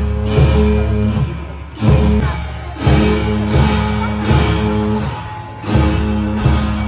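Tibetan Buddhist monastic ritual music for a cham mask dance: low, sustained horn tones broken by drum and cymbal strikes about once a second.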